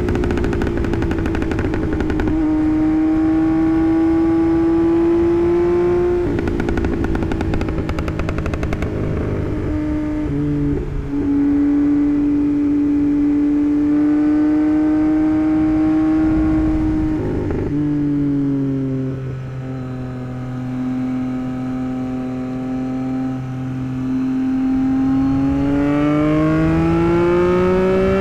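Tuned Yamaha MT-09's 890 cc inline-three engine under way, its pitch holding or creeping up in each gear and stepping down at gear changes. It has a rough, crackling stretch about a third of the way in, lower revs in the middle, and climbs steadily under acceleration near the end.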